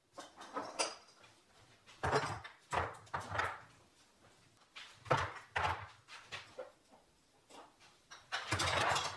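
Glass spice jars being pulled from a kitchen cabinet and set down on a stone countertop: a run of separate knocks and clinks with short gaps between them.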